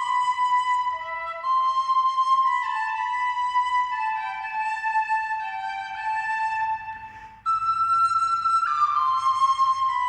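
Music: a slow melody on a flute-like wind instrument, held notes moving up and down in small steps, with a brief break about seven seconds in before the line picks up again.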